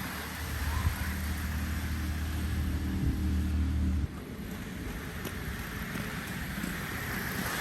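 A steady low motor hum that cuts off abruptly about four seconds in, over a constant outdoor rush of wind noise.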